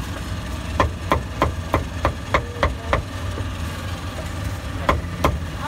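Cleaver chopping roast meat on a wooden block: a quick run of about eight sharp chops, roughly three a second, then a pause and two more near the end. Under it runs a steady low engine hum.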